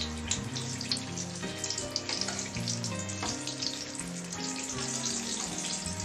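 Mirchi bajji (batter-coated green chillies) sizzling and crackling as they deep-fry in hot oil, with background music playing a melody underneath.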